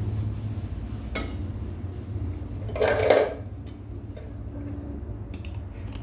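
Metal tools or parts clinking and clattering: a sharp click about a second in, then a louder clatter around three seconds, with small clicks later, over a steady low hum.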